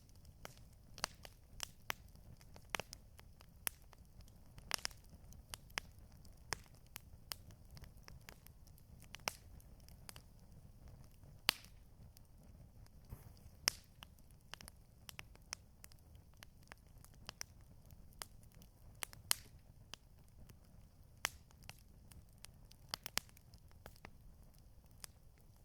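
Campfire burning, with irregular sharp crackles and pops from the burning wood over a steady low rumble.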